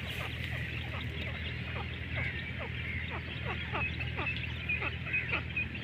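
Grey francolins calling with many short downward-sliding notes, a few a second and overlapping, over a busy higher twittering and a steady low hum.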